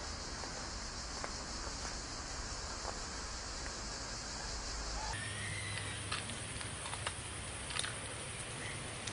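Outdoor ambience: a steady high hiss that changes abruptly about five seconds in to a different, quieter-topped background with a few sharp clicks and a short chirp.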